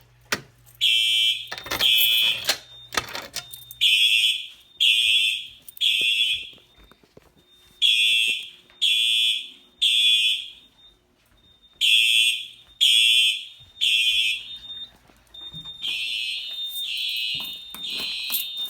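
Home fire alarm horns sounding in the temporal-three evacuation pattern, after a manual pull station is pulled: groups of three high-pitched blasts about a second apart, each group followed by a short pause. A few sharp clacks come in the first seconds, and near the end the blasts are quieter.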